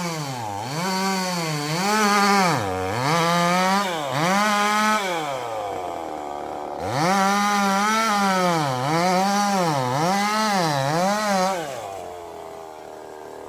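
Chainsaw engine revving in repeated surges, its pitch climbing and dipping about once a second as the throttle is worked. It drops away briefly around six seconds in, picks up again, then falls off near the end.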